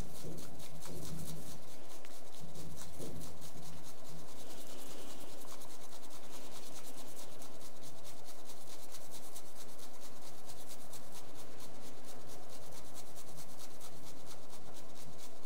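Bamboo tea whisk (chasen) whisking matcha in a rough-textured ceramic tea bowl: a rapid, steady scratchy swishing as the tea is whipped to a froth.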